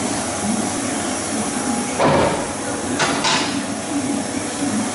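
Komori offset printing press with its quick-clamp plate cylinder mechanism: a heavy metallic clunk about two seconds in and a sharper clack about a second later, over a steady machine hum.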